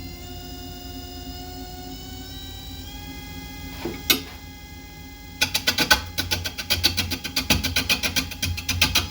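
Wood lathe motor whining as it spins up, the pitch rising in steps. About four seconds in come a couple of knocks. From about five seconds a turning tool meets the spinning bowl blank with rapid rhythmic knocking, because the blank is not yet round.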